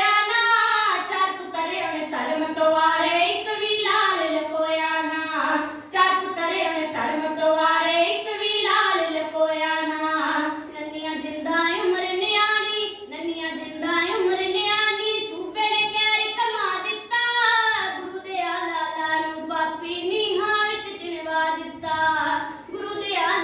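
Two boys singing kavishri, the Punjabi ballad style sung without instruments: a loud, declaiming melody in Punjabi verse, carried on continuously with only brief breaths between lines.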